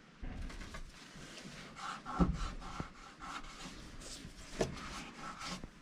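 Hands rummaging through old debris, with rubbing and scraping and a few light knocks, the clearest about two seconds in and again about four and a half seconds in.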